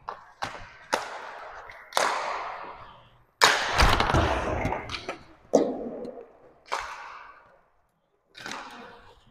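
Roller hockey play in an echoing arena: a string of sharp stick and puck impacts, each ringing out. The loudest comes about three and a half seconds in.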